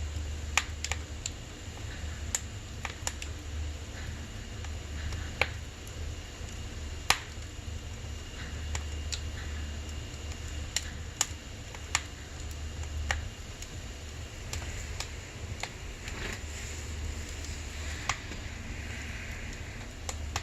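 Firewood burning in a wood stove, crackling with irregular sharp pops, a dozen or so clear ones and many fainter, over a low steady hum.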